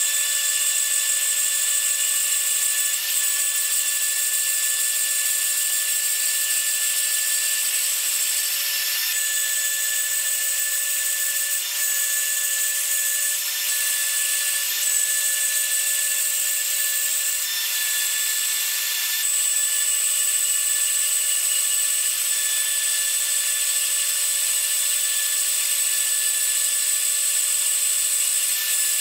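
Bandsaw cutting through a metal plate: a steady running sound with several held tones under a high hiss from the blade in the metal.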